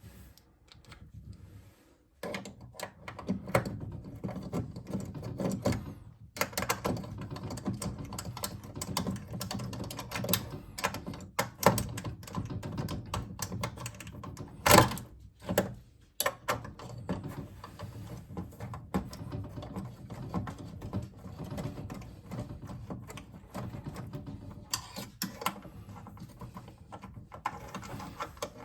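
Screws being driven in with a screwdriver to fasten a pinball machine's head mechanism: long runs of fast, sharp clicks, broken by short pauses, with one loud knock about halfway through.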